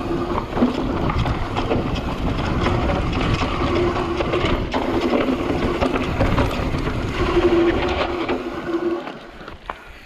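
Trek Slash full-suspension mountain bike riding fast down a dirt trail: continuous tyre rumble with rattles and knocks from the bike, and a steady low drone through the middle. It starts suddenly and dies down about nine seconds in.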